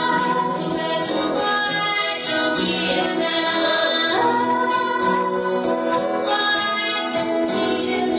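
Live band music with long held sung notes, recorded on a cellphone.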